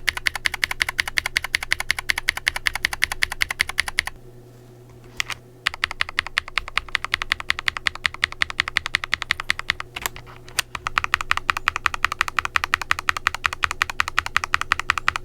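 Rapid typing on a mechanical keyboard fitted with tactile switches, a quick run of key clacks at several strokes a second. The typing comes in three runs, with a pause of about a second and a half after about four seconds and a brief break near ten seconds.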